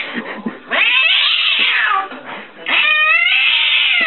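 A cat giving two long, drawn-out yowling meows about two seconds apart, each rising and then falling in pitch.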